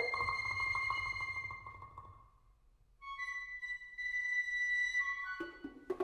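Bird-inspired chamber music. A high, whistle-like flute-like note is held over a fast fluttering tremolo, then fades to a brief lull. A second long high note follows, and a few sharp struck percussion notes ring out near the end.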